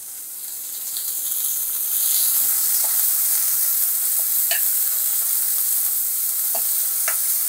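Sliced onions sizzling in hot oil in a metal kadhai while a ladle stirs them, with a few light clicks of the ladle against the pan. The sizzle grows louder over the first two seconds, then holds steady.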